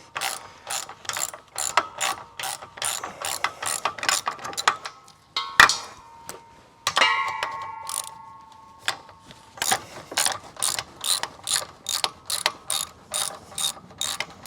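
Ratchet wrench clicking in quick even strokes, about three a second, as it backs out the tongue jack's mounting bolts, which were already broken loose. Partway through the ratcheting stops for a sharp metal clank and a brief metallic ringing.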